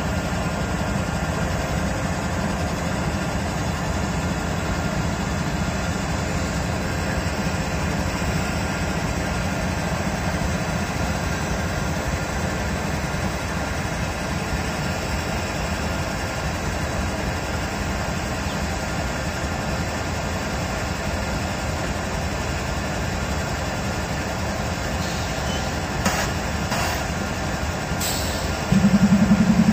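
Diesel-electric freight locomotives idling with a steady low hum. Near the end a louder, deeper engine sound starts suddenly.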